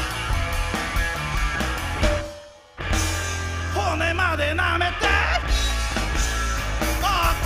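Live rock band playing loud, with electric guitar, bass guitar and drums. About two seconds in, the band stops dead for roughly half a second, then crashes back in. From about four seconds in, a wavering, sliding line sounds over the band.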